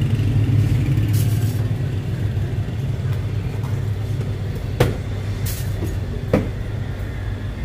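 Steady low background rumble, with two sharp knocks about five and six and a half seconds in as a stainless-steel cup is handled on the counter.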